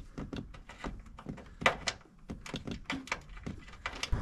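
Irregular small clicks and taps of hands working a door jamb switch and its wiring into the car's door jamb, with one louder click about a second and a half in.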